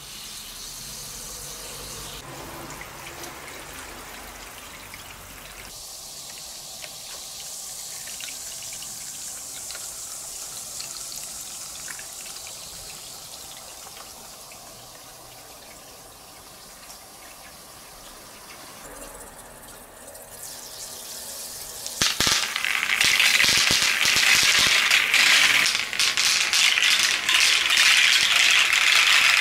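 Shower head spraying water into a plastic rain gutter, a steady hiss of running water. About three-quarters of the way in, a load of plastic balls starts clattering down the gutter and a plastic spiral slide with the water, a much louder rattle of many quick knocks.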